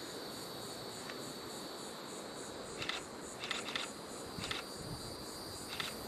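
Steady insect chorus: a continuous high trill with a fast pulsing above it. A few brief ticks come about halfway through.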